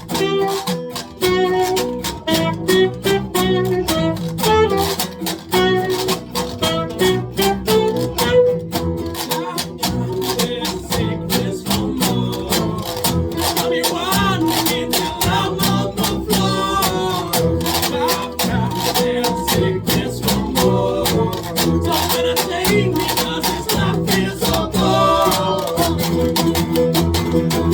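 Folk band playing live: strummed acoustic guitar keeping a steady rhythm, with a melodic line over it.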